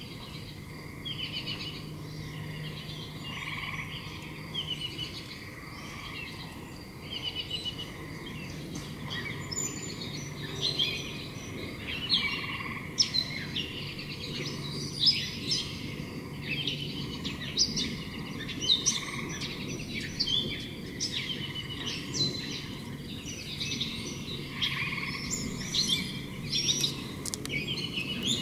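Several birds calling outdoors: many short, repeated chirps and twitters throughout, over a faint low steady hum.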